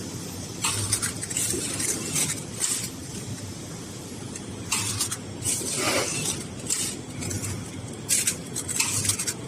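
Blister packaging machine running: a steady mechanical hum with short hisses repeating every second or so.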